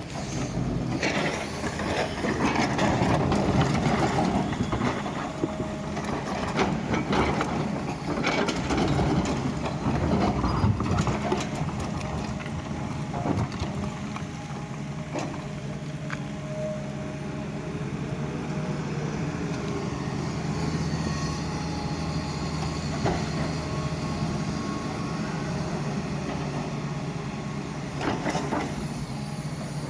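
Doosan excavator's diesel engine running steadily under working load, with scraping and scattered metallic clanks from the digging, busiest in the first ten seconds or so.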